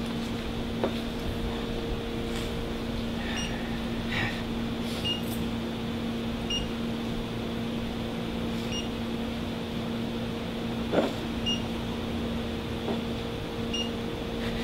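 A steady electrical hum, with faint short electronic beeps every second or two and a few soft clicks and knocks, the loudest about eleven seconds in.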